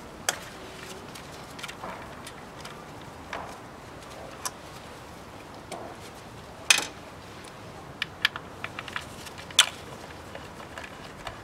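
Scattered sharp metal clicks and clinks of hand tools on engine parts, the loudest about seven and nine and a half seconds in, with a quick run of light clicks between them.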